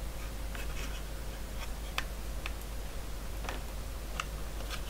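A thin metal probe clicking and scraping against the plastic spring tabs of a power supply controller's case, in about eight small, irregular ticks. A faint steady hum runs underneath.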